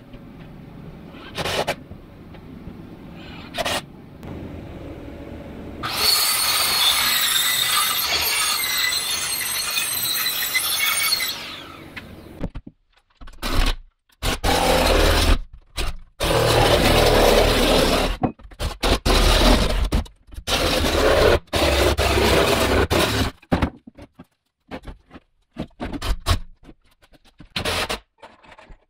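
Cordless drill driving screws into OSB wall panels in repeated short bursts, among scraping and knocking of the sheets being fitted. About six seconds in, a loud steady rushing noise runs for about six seconds.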